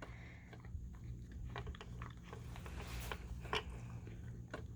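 A dog eating treats from a puzzle box: faint crunching with scattered small clicks, the clearest about a second and a half in and twice more near three and a half seconds.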